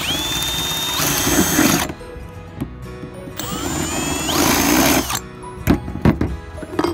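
Power drill with a twist bit boring two small locator holes through a metal plate into the van roof: two bursts a couple of seconds apart, each starting with the motor whine rising then holding steady as the bit cuts. A few sharp clicks follow near the end.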